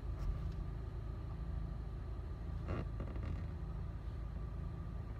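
Steady low rumble inside a car's cabin, with a faint even hum over it, as of a car sitting with its engine running. A short soft noise a little past the middle.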